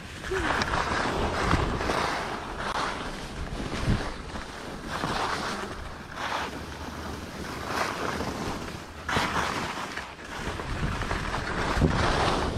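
Skis sliding and scraping over chopped-up snow, rising and falling in a series of swells as the skier turns, with wind on the microphone and a few low thumps.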